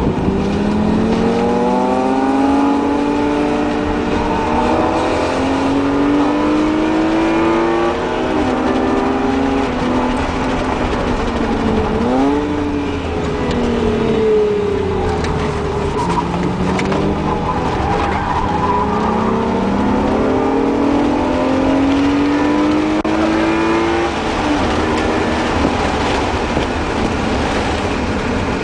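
BMW E36 M3's straight-six engine, heard from inside the cabin under hard track driving. It rises in pitch through the revs again and again, dropping back at each gear change. Near the middle it falls away and then climbs again, over steady road and wind noise.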